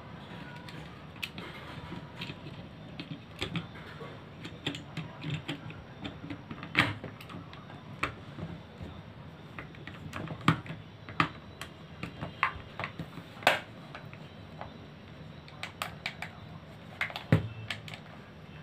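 Plastic casing and parts of a rechargeable electric mosquito racket being fitted back together and handled: scattered irregular clicks and taps, a few of them sharper.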